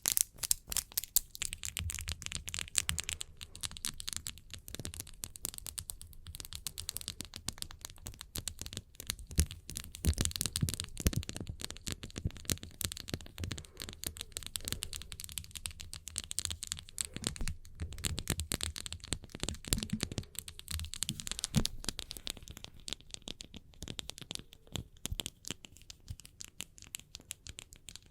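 Close-miked ASMR hand sounds: hands rubbing together and fingernails tapping, a dense run of small crackling clicks and scratches with soft low thumps mixed in.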